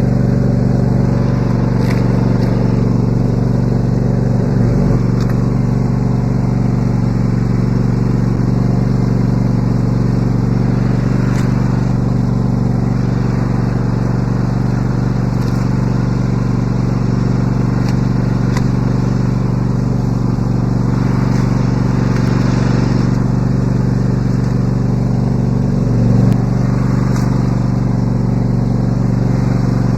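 Riding mower engine running steadily at idle, with a couple of brief low bumps partway through and near the end.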